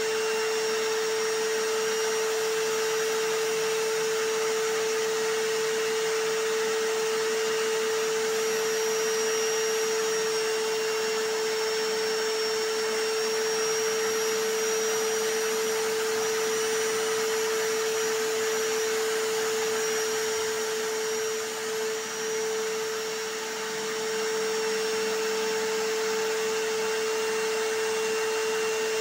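Vacuum cleaner and hammer drill running together without a break as one continuous motor noise with a steady whine, dipping slightly for a few seconds past the middle.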